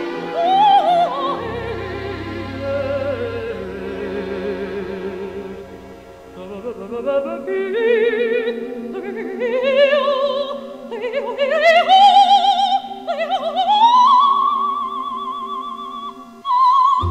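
Music: a wordless melody with strong vibrato, climbing upward in gliding steps over a held chord and settling on a long high note near the end.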